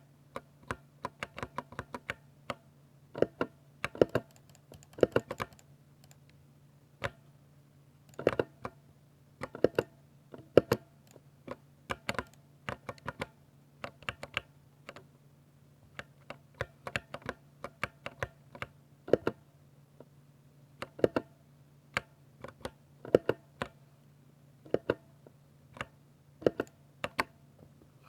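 Typing on a 60% mechanical keyboard with Ducky silver switches: irregular key presses, sometimes in quick runs, sometimes single strokes a second or so apart, over a faint steady hum.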